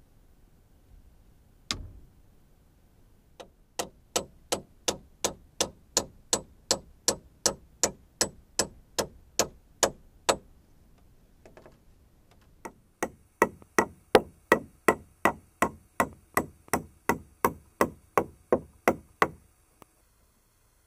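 Hammering on wood: a single knock, then two long runs of quick, even blows at about three a second, with a short pause between.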